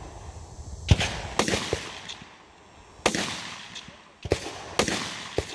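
Carbine fired from prone, single shots at an unhurried, irregular pace: about five loud reports with fainter cracks in between.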